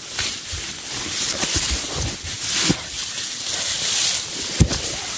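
Tall grass rustling and brushing as someone pushes through it, with a few dull thumps, the loudest near the end.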